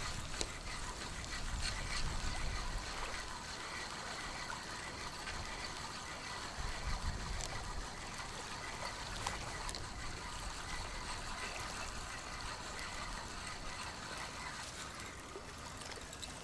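Small waves lapping and trickling at the water's edge, with gusts of wind rumbling on the microphone near the start and again about seven seconds in.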